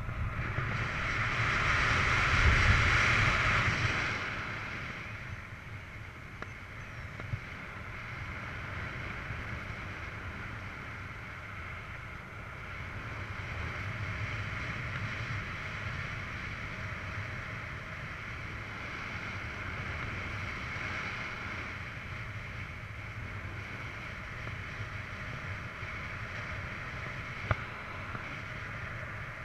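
Wind rushing over the camera microphone while paragliding, louder for the first few seconds as the glider banks in a turn, then a steady hiss. There is a single brief click near the end.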